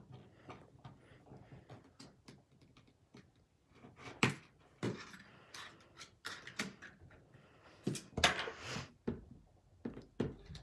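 Scattered clicks, taps and scrapes of an iPhone 3GS being pried open by hand, its front screen assembly coming away from the body. The loudest knocks come about four seconds in and in a quick run around eight seconds in.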